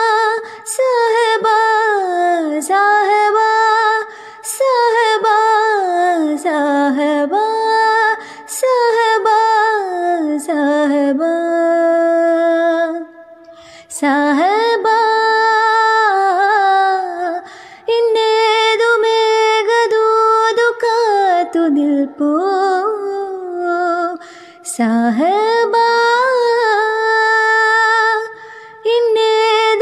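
A woman singing a slow, ornamented melody with long sliding notes, in phrases separated by short breaths. The song plays as a background track.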